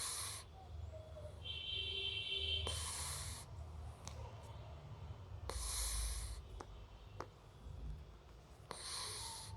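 Labrador retriever puppy snoring in its sleep: a noisy, hissy breath about every three seconds, over a low rumble.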